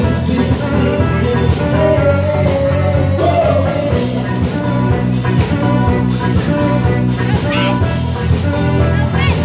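Live band playing a dance-pop cover, with keyboard, electric guitar and bass guitar over a steady beat and a held sung note in the middle.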